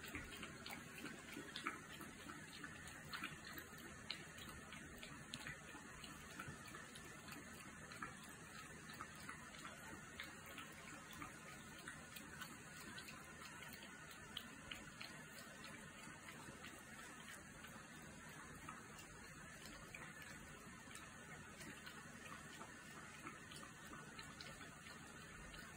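Newborn puppies suckling at their mother: faint, irregular wet smacking and clicking, denser in the first half, over a faint steady hiss.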